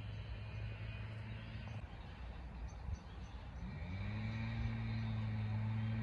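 Steady low motor hum that drops out about two seconds in and comes back a little under four seconds in, gliding up in pitch before settling steady again.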